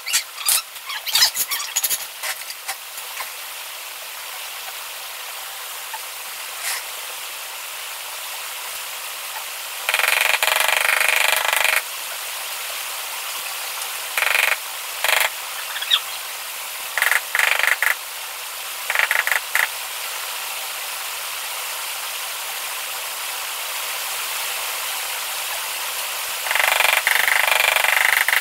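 Rubber mallet tapping a large floor tile down into its mortar bed, in quick runs of taps a second or two long, with scattered sharp clicks and scrapes near the start.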